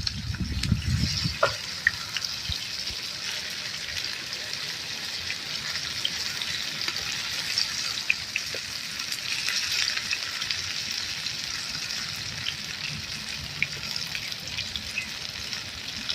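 Flour-battered jackfruit leaves frying in hot oil in a pan: a steady sizzle with small pops and crackles. A low rumble sounds in the first second or so.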